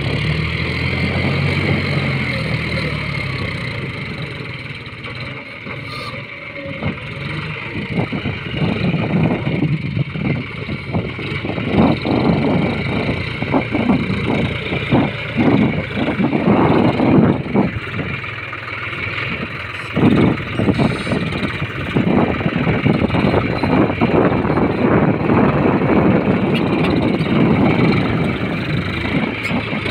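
John Deere tractor's diesel engine running while its front loader scoops and lifts a bucket of sand; the engine sound swells and drops as the load comes on and off.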